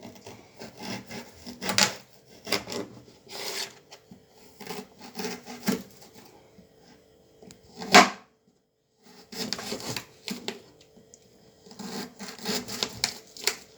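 Knife slicing fresh ginger on a cutting board: a run of irregular cuts and taps, with one sharp knock about eight seconds in.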